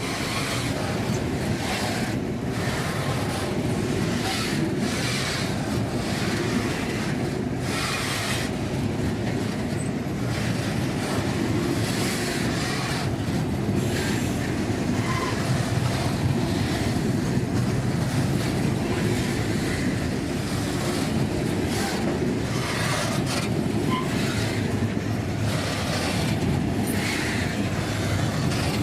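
A freight train rolling past on the rails: a steady rumble of the wagons with irregular clickety-clack as the wheels cross rail joints, and a few brief faint squeaks.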